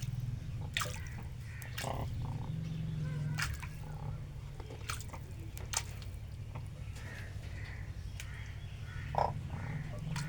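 Cranes bathing, with short sharp splashes and drips of water scattered through, over a steady low hum.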